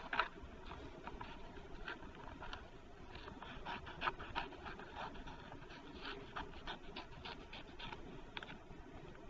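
Scissors cutting through paper, a run of quick, faint, irregular snips.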